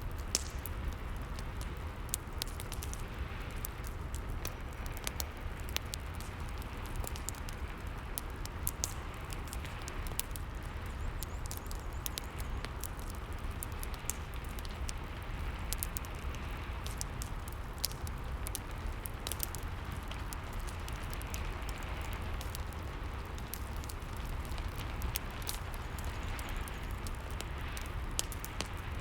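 Fireplace fire crackling with scattered sharp pops over a steady hiss of rain, a low rumble underneath.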